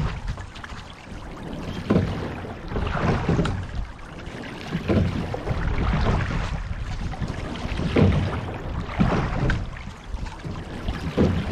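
A sculling shell under way: the oars' knock and splash come in pairs with each stroke, about every three seconds, and water rushes along the hull in between.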